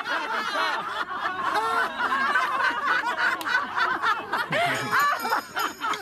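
A group of voices laughing and chattering all at once, many rising and falling calls overlapping. Near the end a bright jingling starts.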